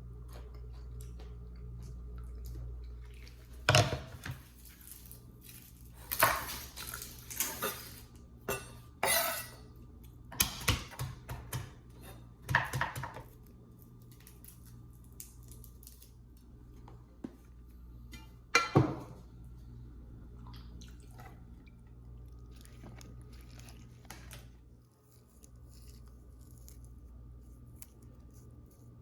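Kitchen utensils and dishes clattering in a series of sharp clanks and scrapes, most of them between about 4 and 13 seconds in and one more near 19 seconds, over a low steady hum.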